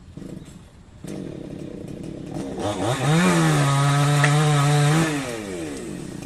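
Stihl two-stroke chainsaw running at idle, revved up about two and a half seconds in, held steady at full throttle for about two seconds, then falling back to idle near the end.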